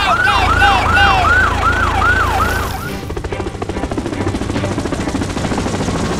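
Siren sound effect: a quick run of falling wails, about three a second, that stops about three seconds in. It is followed by the fast, even chop of a helicopter rotor sound effect.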